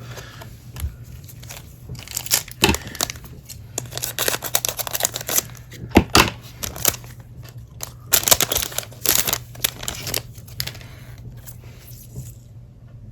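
A foil trading-card pack wrapper being torn open and crinkled in a series of sharp, crackly bursts, and the cards being handled. The sounds fade near the end.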